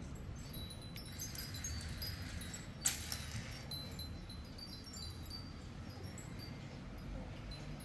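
Faint, scattered high tinkling notes like a wind chime over a low steady hum, with one sharp click about three seconds in.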